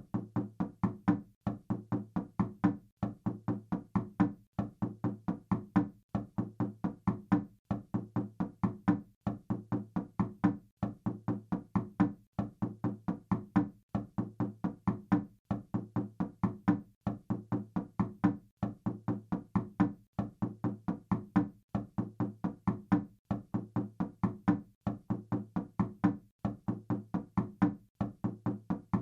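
Knocking on a wooden door: quick runs of five or six knocks, each run repeated about every second and a half with short pauses between.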